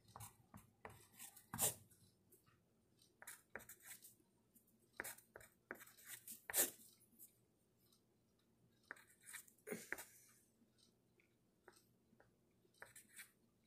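Pencil writing on paper: faint, irregular scratchy strokes with pauses between them, and a few sharper ticks.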